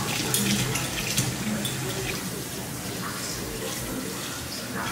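Kitchen faucet running steadily into the sink as dishes and a glass carafe are rinsed under the stream.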